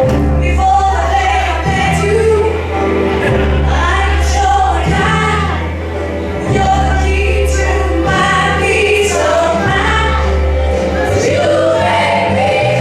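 Loud music with a group of voices singing over a deep bass line that sounds in long held notes.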